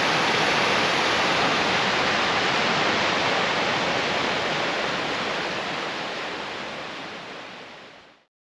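Rushing stream water tumbling through white-water rapids, a steady even rush that fades out over the last few seconds and stops about eight seconds in.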